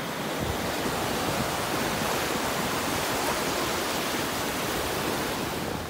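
Ocean surf breaking and washing up a sandy beach: a steady rushing hiss with no let-up.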